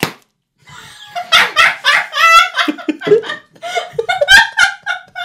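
A man laughing heartily, a long run of loud laughs starting about a second in.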